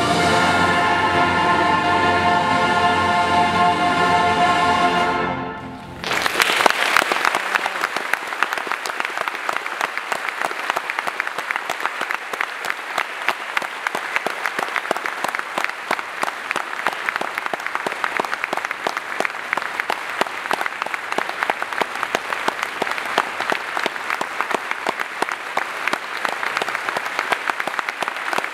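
Mass choir and string orchestra holding a final chord, which dies away about five seconds in. About a second later a large audience breaks into steady applause that carries on.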